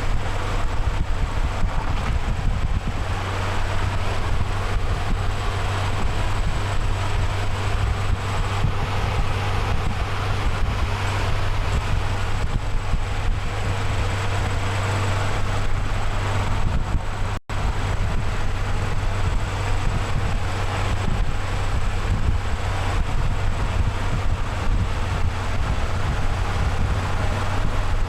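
Steady motor-vehicle engine and road noise with a strong low hum, dropping out for an instant about two-thirds of the way through.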